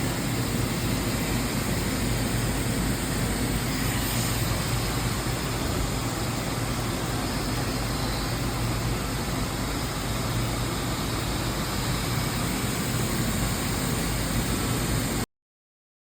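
Fadal VMC 6030 CNC vertical machining center running under power: a steady mechanical hum with hiss that stops abruptly near the end.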